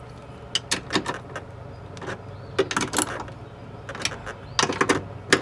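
Sharp metallic clicks and taps of a small socket driver tightening the side mirror's mounting nuts inside the door, in short irregular groups.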